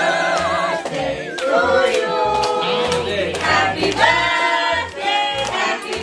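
A song with several voices singing together, holding notes that waver in pitch over a steady low pulse.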